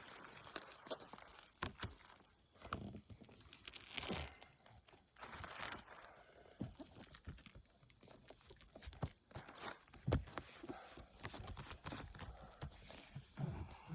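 Faint, irregular knocks and scuffs of people working and moving about on a shingled roof.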